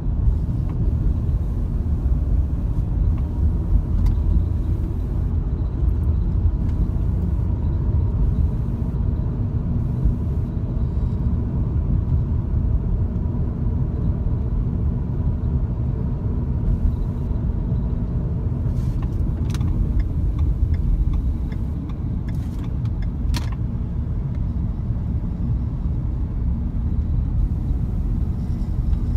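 Steady low rumble of a car in motion, with a few faint clicks about two-thirds of the way in.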